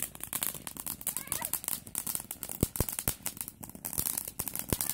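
Consumer firework crackling: a fast, irregular run of small pops and snaps, with a few louder cracks in the middle and near the end.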